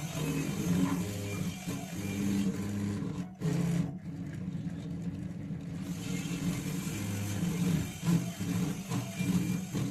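Stepper motors of a DIY CNC pen plotter whining as they drive the pen through a drawing, the pitch shifting every half second or so from one move to the next.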